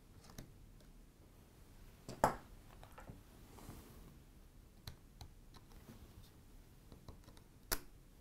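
Light clicks and scratches of fingers working small parts inside an opened MacBook Pro, with two sharper clicks, one about two seconds in and one near the end.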